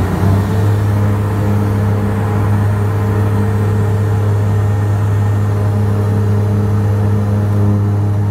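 Aircraft engines running steadily, heard from inside the passenger cabin while taxiing: a loud, even drone with a constant low hum.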